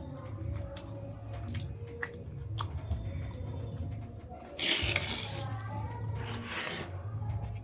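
Person eating a meal: chewing, with a few small clicks of food and dishes, and two louder, longer rushing sounds about halfway through and near the end.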